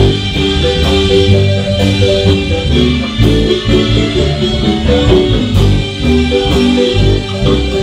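Live marimba band music: quick mallet notes on the marimba over a steady bass line and beat.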